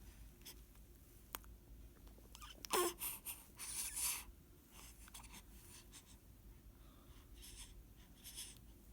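A swaddled infant's little breath sounds: short, faint snuffly breaths and soft rustles, with a brief falling squeak and the strongest breaths about three to four seconds in.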